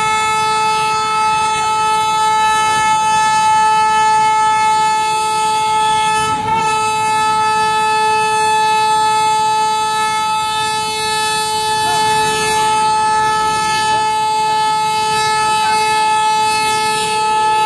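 Locomotive air horn sounded in one long steady blast, a single held tone with a brief dip about six and a half seconds in: a warning to people and vehicles crossing the tracks in front of the train.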